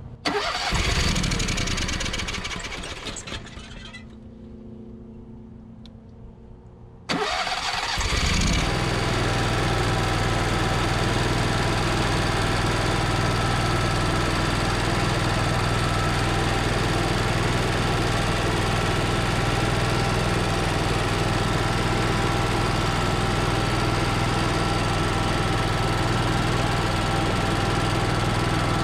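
Onan 5500-watt RV generator starting on its newly fitted carburetor. A first start loudens and then fades away over a few seconds. About seven seconds in, a second start catches, and the engine settles into a steady run.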